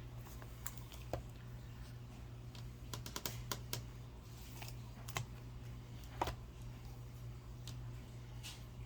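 Scattered light clicks and crinkles of sealed foil booster packs being handled and set down on a small digital scale, at irregular intervals, over a faint steady low hum.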